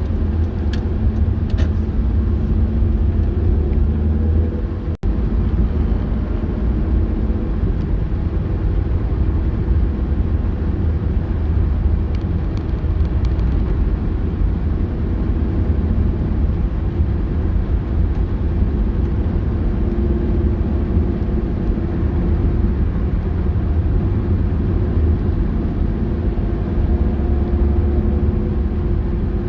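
A car driving, with a steady low rumble of engine and road noise that briefly drops out about five seconds in.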